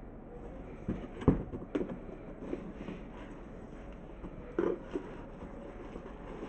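Cardboard shoebox being opened and the shoes inside handled: a few short knocks and rustles, the sharpest about a second in and two more a little before five seconds in.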